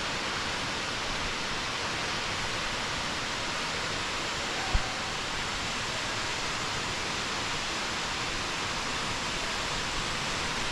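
Steady rushing roar of a waterfall, with one brief low bump about halfway through.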